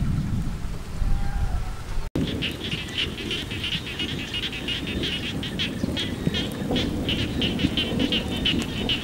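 Low wind rumble on the microphone. About two seconds in, a chorus of frogs starts up: many short, high, pulsed calls overlapping several times a second over the wind.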